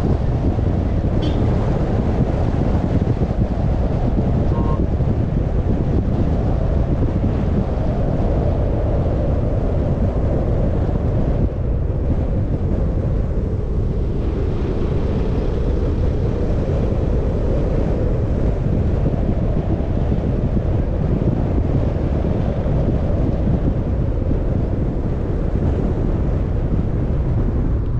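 Steady low rumble of a moving car: road noise with wind buffeting the microphone.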